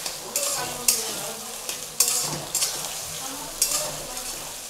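Chopped onions sizzling in hot oil in a metal kadai while a flat spatula stirs them, with several sharp scrapes of the spatula against the pan.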